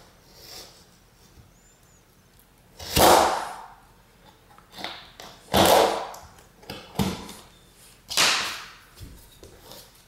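Utility knife blade scoring the paper face of a drywall sheet: three loud scraping strokes a couple of seconds apart, with a few fainter strokes between them.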